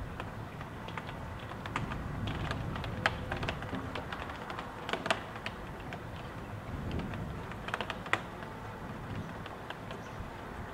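Raindrops tapping irregularly against a window, heard from indoors, over the low rumble of gusting wind that swells briefly about two thirds of the way through.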